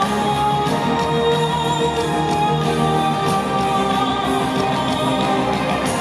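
Music with long held notes.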